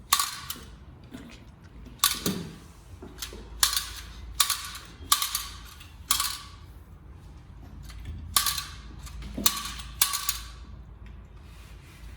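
About nine sharp snapping clicks at irregular intervals, each with a brief ring.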